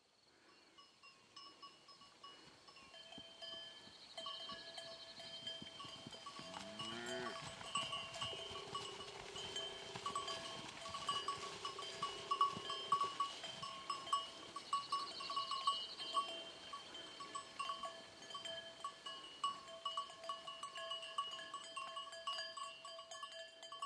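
Bells on grazing livestock ringing on and off, several bells of different pitch clinking irregularly as the animals move. A brief rising tone sounds about seven seconds in.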